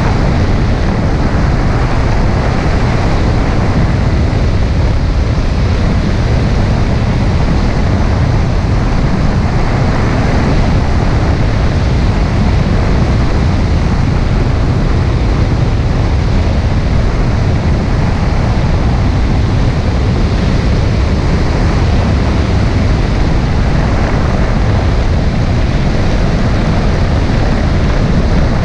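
Kawasaki jet ski under way across choppy water: a loud, steady rush of wind buffeting the microphone over engine and water noise, heaviest in the low rumble, with no changes in speed.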